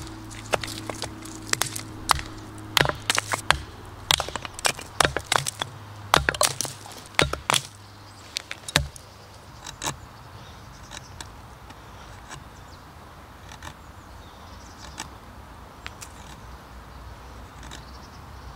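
A heavy Hemlock ARES chopping knife striking wood in a quick series of sharp cracks for about the first eight seconds. After that the sound drops to quiet scraping and occasional ticks as the blade shaves thin curls off a stick.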